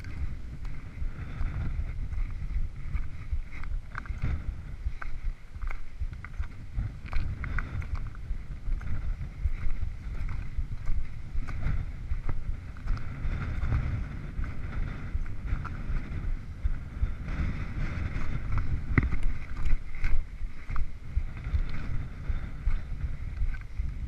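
Wind buffeting a body-worn action camera's microphone: an uneven, gusty rumble. Scattered light clicks and scuffs run through it, from boots stepping over summit rock.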